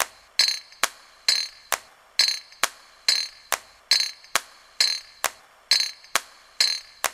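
A spoon beating thick flour batter in a glass bowl, knocking and scraping against the glass in a steady rhythm of about two strokes a second. Sharp taps alternate with longer, brighter scrapes.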